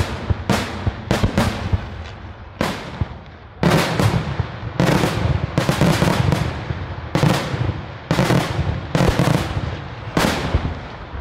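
Daytime aerial fireworks going off in a rapid, irregular volley of loud bangs. About four seconds in, the bangs thicken into a dense run of overlapping reports with a low rumble beneath, then thin out again near the end.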